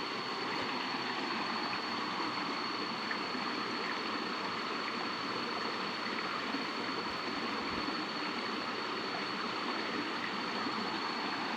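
Steady rush of flowing water, with a thin, steady high-pitched tone running over it.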